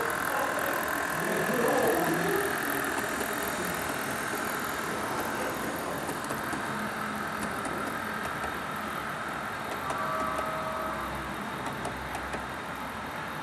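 HO scale model freight train led by Illinois Central Gulf diesels rolling past: a steady whir of the locomotive motors and wheels on the rails, with faint light clicks.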